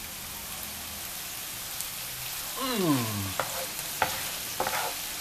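Beef liver, jiló and onion frying in a hot pan with a steady sizzle, stirred with a wooden spoon that knocks and scrapes a few times near the end. A brief falling vocal sound comes about halfway through.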